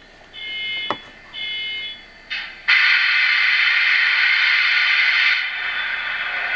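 Two short electronic beeps, then about two and a half seconds in the Athearn Genesis HO-scale SD70ACe's onboard sound decoder starts its diesel engine sound. It comes in suddenly and loud through the model's small speaker, steady and thin with no low end, and eases a little near the end.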